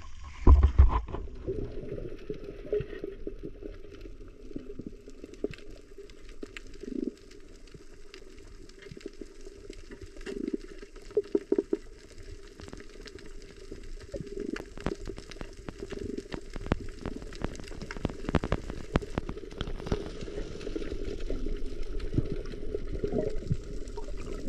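Underwater sea sound picked up by a submerged camera: a splash about half a second in as it goes under, then a muffled low watery rumble with many small crackling clicks and bubbling.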